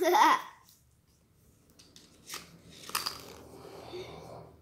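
A child's short voiced exclamation, then paper packaging rustling as a pack of colored pencils is opened and tipped out, with two sharp clicks about half a second apart as the pencils knock together.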